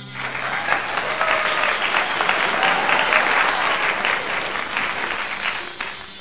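Mini electric rotary drill with a grinding-stone bit running against a block of wooden sticks: a steady, rough grinding noise.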